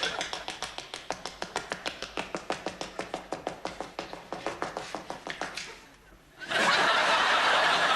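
Rapid, even tapping at about seven strokes a second, dying away about six seconds in; then a sudden loud wash of audience noise near the end.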